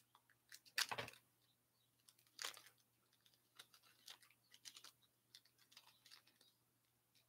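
Faint, scattered clicks and rustles of a stack of hockey trading cards being flipped through by hand, the sharpest taps about a second in and again a moment later.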